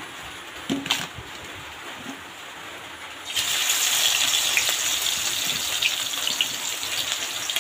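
Small whole fish sizzling in hot oil in a metal wok. About three seconds in the sizzle jumps loud as the fish go into the oil, then holds as a steady hiss; before that there is only a quieter hiss with a couple of clicks.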